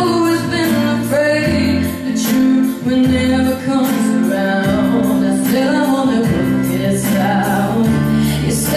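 A young woman singing a slow pop ballad live into a handheld microphone through a PA, with held, gliding notes, over electronic keyboard accompaniment playing sustained chords.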